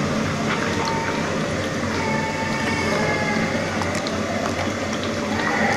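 Steady rushing background noise with a low hum, faint pitched sounds drifting in and out, and a few light clicks of a plastic spoon against a plastic bowl as runny batter is stirred.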